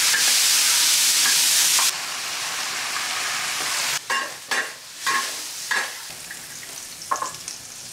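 Fish-mint roots (zhe'ergen) and cured pork stir-frying in a large wok. A loud sizzle drops off sharply about two seconds in, then a quieter frying hiss runs under several scrapes of the metal spatula against the wok.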